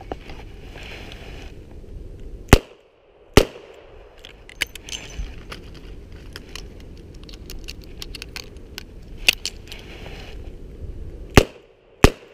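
Revolver fired twice in quick succession. Then a speed-loader reload: small metallic clicks and rattles of the cylinder opening, empty cases coming out and fresh rounds going in. Two more shots come near the end.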